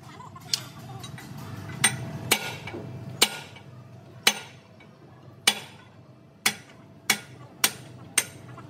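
A hammer tapping on metal: about ten sharp, separate strikes at uneven intervals, roughly one every half second to a second, over a faint steady hum.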